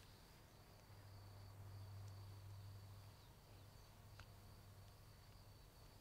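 Near silence: faint outdoor ambience with a steady low hum and a faint steady high tone, and one soft click about four seconds in.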